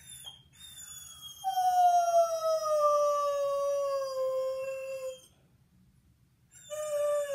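Borzoi howling: a thin high note leads into one long howl that slides slowly down in pitch for about four seconds. After a short pause a second howl starts near the end, also falling in pitch.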